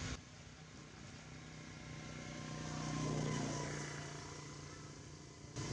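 A motor vehicle's engine passing by: a steady hum that swells to its loudest about three seconds in, then fades away.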